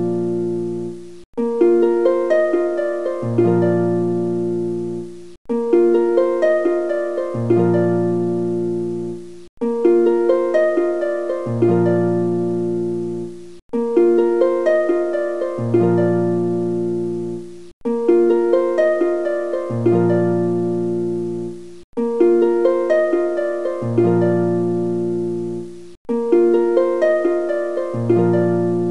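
Background music: a short plucked-string phrase that loops about every four seconds, each repeat cut off by a brief drop-out before it starts again.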